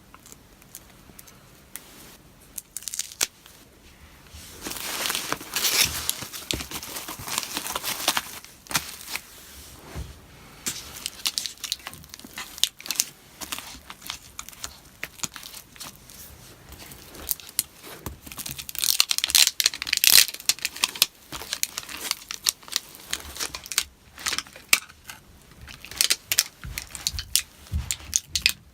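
MacBook Pro battery cells being pried and peeled off their strong adhesive: tearing, crackling sounds in two longer spells, about five seconds in and again near twenty seconds, with many small clicks between.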